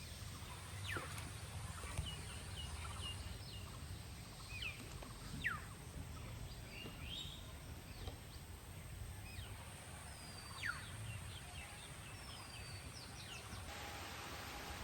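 Birds calling: scattered short chirps and several quick, sharply falling whistles, over a steady low rumble of outdoor background noise.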